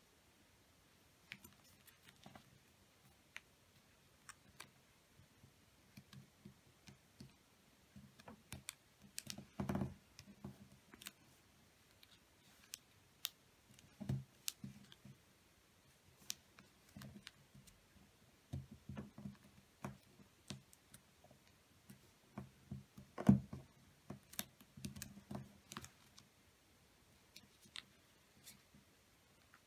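A sheet of origami paper being folded and creased by hand on a table: scattered soft crinkles, taps and clicks. Two louder knocks come about ten seconds in and again about twenty-three seconds in.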